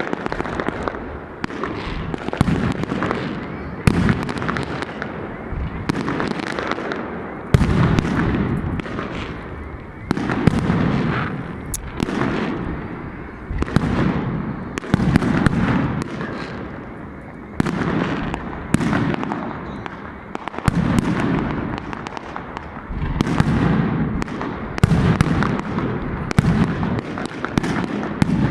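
Fireworks going off without a break: sharp bangs every second or so over rumbling bursts that swell and fade every couple of seconds, with crackle between them.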